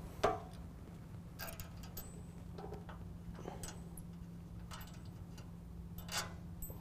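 Small metal clicks and clinks, scattered about once a second, as nuts and washers are taken off the studs of an aftermarket mesh grille's mounting brackets by hand and set down. The loudest click comes just after the start. A steady low hum runs underneath.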